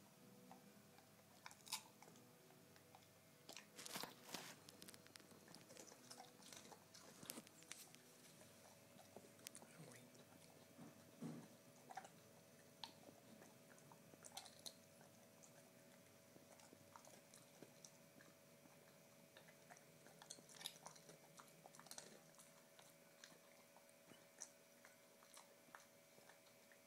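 A pit bull–type dog slowly chewing a peanut-butter-filled pretzel snack: faint crunches and mouth clicks at irregular intervals.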